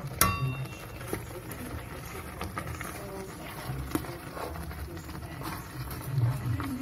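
A metal spoon stirring jackfruit pieces in thick brown-sugar syrup in a metal pot. There is a sharp ringing clink as the spoon strikes the pot just after the start, then lighter taps and scrapes, with another clear tap about four seconds in.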